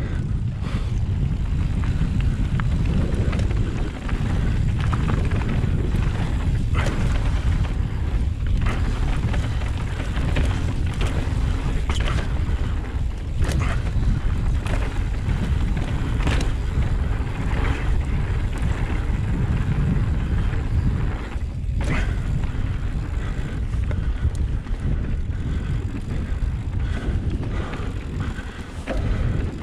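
Mountain bike descending a rough trail. Wind buffets the camera microphone in a steady low rumble, and frequent sharp clacks and rattles come from the bike as it hits roots and rocks.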